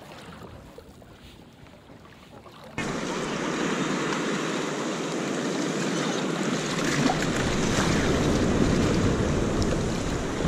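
Faint wind and water at first, then, about three seconds in, a sudden loud and steady rush of breaking surf and water splashing around a kayak in the shore break, with wind on the microphone.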